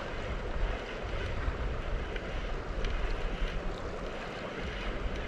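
Wind buffeting the microphone: an uneven low rumble that gusts up and down over a steady hiss.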